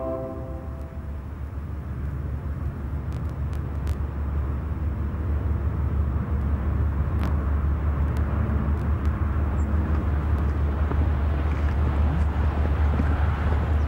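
Outdoor ambience: a steady low rumble with a hiss of noise above it that slowly grows louder, with a few faint clicks. A fading organ chord trails off in the first second.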